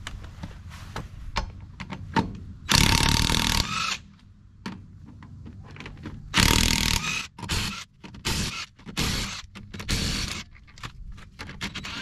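Cordless impact wrench hammering on a truck wheel's lug nuts in bursts: two longer runs of about a second each, then several short ones, with light clicks and knocks of the socket and nuts in between.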